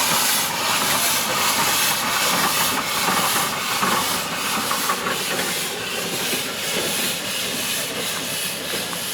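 Steam hissing steadily from a geared logging steam locomotive, easing off slightly over the last few seconds.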